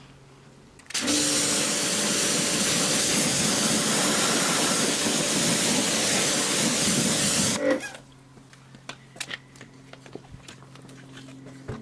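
Pressure washer jet spraying onto an alloy wheel and tyre for about seven seconds, a loud steady hiss with the pump's hum beneath it, starting about a second in and cutting off sharply. Afterwards come light knocks and rubbing as the wheel is turned by hand.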